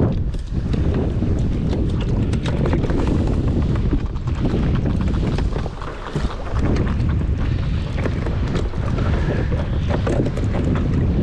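Strong wind buffeting the microphone in a steady, heavy rumble, with a dense run of sharp ticks and slaps over it.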